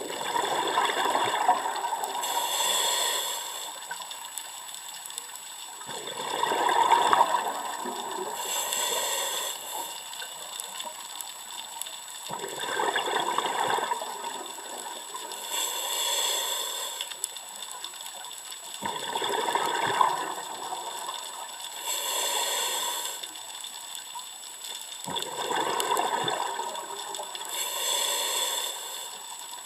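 Scuba diver breathing through a regulator underwater: a bubbly rush of exhaled air, then a hiss from the regulator on each inhalation. The cycle repeats evenly, about one breath every six seconds, five times.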